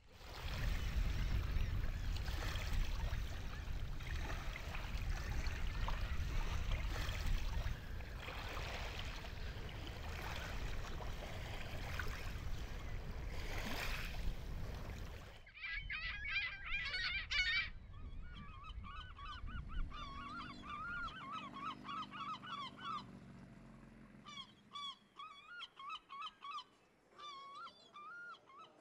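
Steady wind and waves on a lakeshore for about the first half. Then the noise drops away and waterbirds call over and over in short, harsh cries. The cries thin out into scattered calls towards the end.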